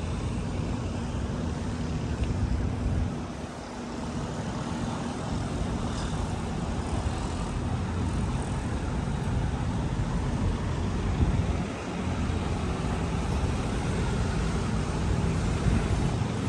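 Steady low rumble of road-vehicle noise, dipping briefly twice.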